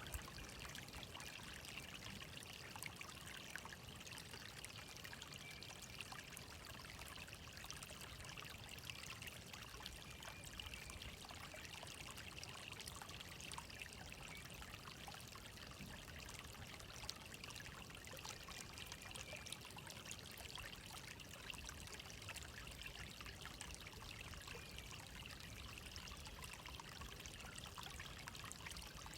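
Steady, faint trickle of flowing water, with many small splashes throughout.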